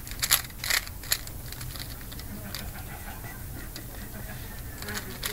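Plastic clicks of a Rubik's Cube's layers being turned by hand: a few quick, sharp clicks in the first second, then quieter turning.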